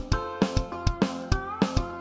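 Background music with a steady, quick beat over held instrument notes.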